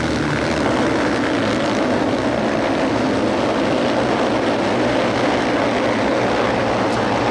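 A full pack of sidecar motocross outfits accelerating away from the start together, many engines at full throttle blending into one dense, steady drone.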